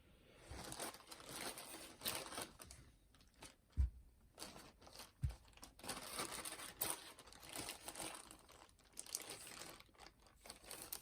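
Hands handling the opened boombox and its parts: irregular rustling and scraping, with two dull knocks about four and five seconds in.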